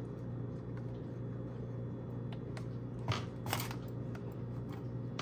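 Cardboard box of a small speaker being handled and opened: faint rustles and scrapes, with a couple of sharp clicks about three seconds in, over a steady low hum.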